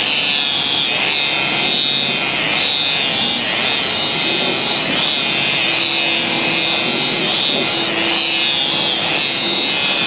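DeWalt rotary polisher running steadily with a buffing pad on a car's painted bonnet, its high motor whine wavering slightly in pitch as it is worked over the panel.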